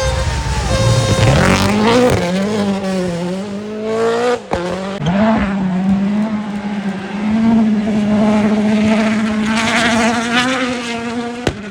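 A rally car's turbocharged four-cylinder engine accelerating hard, revs climbing, with a sharp gear change about four and a half seconds in. It then pulls again and holds high revs. A brief sharp click comes near the end.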